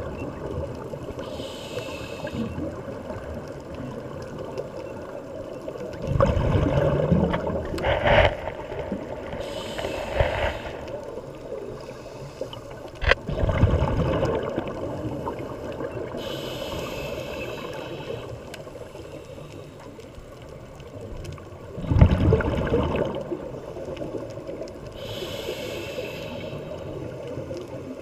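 A scuba diver breathing through a regulator underwater, heard through the camera housing. There is a hiss on each inhalation and a low rush of exhaled bubbles, in a slow cycle of about eight seconds.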